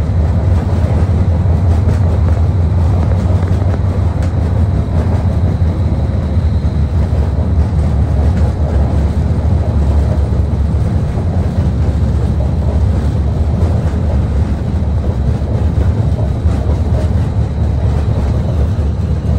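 Portland streetcar in motion, heard from inside the car: a steady low rumble of the car running along the rails.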